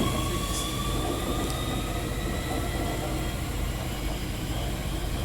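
Electric suburban train pulling out of the station, its motors giving a steady whine that rises slowly in pitch as it gathers speed, over a low rumble.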